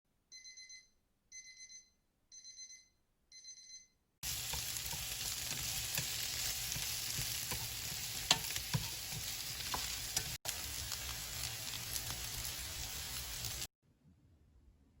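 An electronic alarm beeping in four quick bursts about a second apart. Then food sizzles in a frying pan, with scattered clicks of a utensil stirring. The sizzling breaks off for an instant near the middle and stops shortly before the end.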